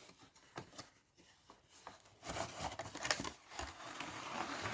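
Handling noise of a toy car's cardboard box and packaging: a few light clicks and taps, then about two and a half seconds of continuous rustling and scraping as the model is worked out of its box.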